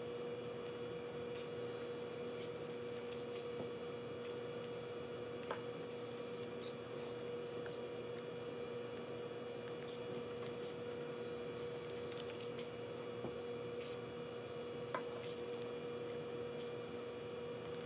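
Faint rustling and crinkling of paper duck cutouts being folded and pressed by hand, with a couple of light taps on the table, over a steady mid-pitched background hum.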